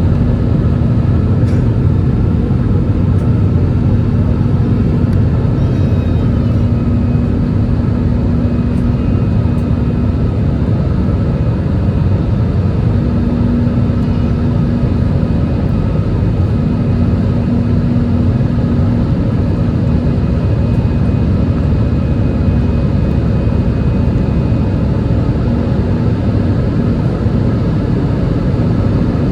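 Airbus A320 jet engines running at steady power after takeoff: a constant low rumble with a hum that drops in and out.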